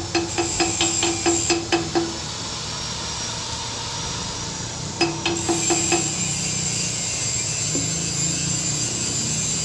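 Hammer striking steel in a rapid run of ringing blows, about five a second, stopping about two seconds in. A steady hiss follows, then a short second run of blows about five seconds in.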